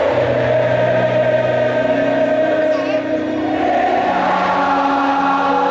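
Large crowd of football supporters singing together in long, held notes that move slowly from pitch to pitch.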